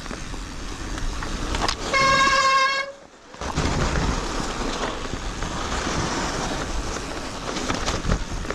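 Wind rush and riding noise from an electric mountain bike on a snowy trail. About two seconds in there is a single steady, horn-like beep of just under a second, then the sound drops out for about half a second before the rush returns.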